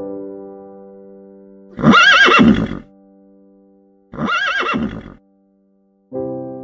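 A horse whinnying twice, each call about a second long with a quavering pitch, the first the louder. Sustained music chords ring before and after the calls.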